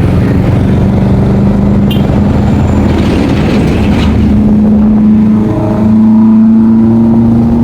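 Motorcycle engine running steadily under way, with a brief dip about five and a half seconds in before it picks up again slightly higher and louder.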